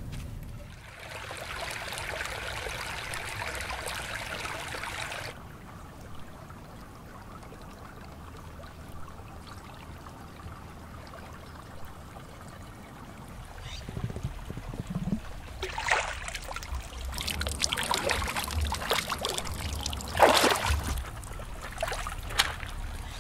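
Water trickling steadily for about four seconds, then cutting off suddenly. Later, bare feet splash through a shallow stony creek, with irregular splashes and knocks and the loudest splash near the end.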